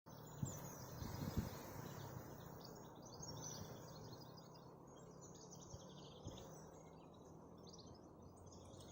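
Faint birdsong: many small birds chirping and twittering in short repeated phrases, with a few soft low thumps in the first second and a half.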